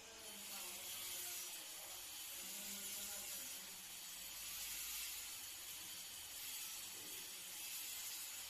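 Faint steady hiss with no distinct events, starting and stopping abruptly.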